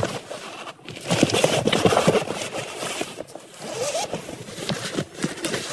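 Rummaging through a handbag: rustling, scraping and light clicks as cosmetics and a pouch are moved about, busiest from about a second in.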